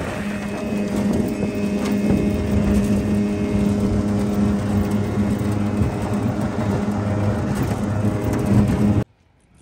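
Small boat's outboard motor running steadily at speed, a constant drone mixed with wind and water rush, cutting off suddenly about nine seconds in.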